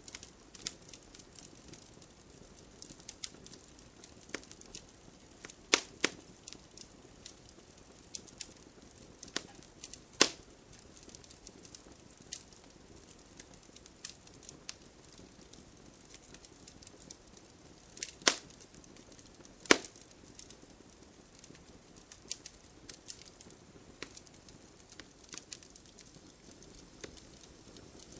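Bonfire crackling: irregular small snaps and pops, with four louder pops, over a faint steady hiss of rain.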